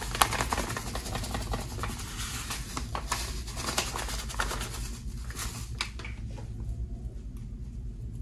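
Dry cleaning powder pouring from a carton onto soft soap paste in a metal bowl: a sandy hiss full of fine crackles. It thins out about six seconds in, leaving a few soft clicks.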